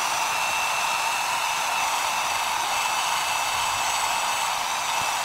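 Handheld hair dryer running steadily on wet hair: a rush of air with a thin steady whine over it, cutting off abruptly at the very end.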